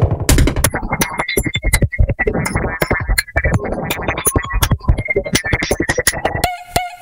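Electronic music: synthesizer sounds with many sharp, clicky percussive hits. About six and a half seconds in, it thins to sparse clicks over a few steady held tones.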